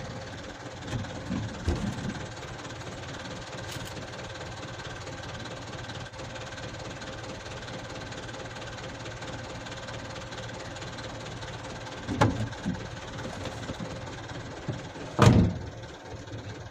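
Truck engine idling steadily, heard from inside the cab. Two short loud thumps come near the end, the second the louder.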